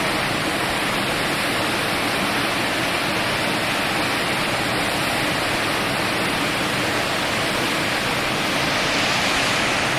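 Shepperd's Dell waterfall rushing: a steady, loud rush of falling water.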